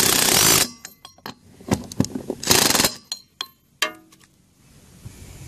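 Torque wrench ratcheting wheel nuts tight: two quick runs of rapid ratchet clicking, one at the start and one about two and a half seconds in, with scattered metallic clicks between them.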